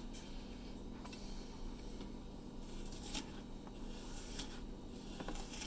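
Chef's knife slicing a green pepper into strips on a plastic cutting board: several faint, crisp cuts as the blade goes through the flesh and taps the board, spaced out, over a low steady hum.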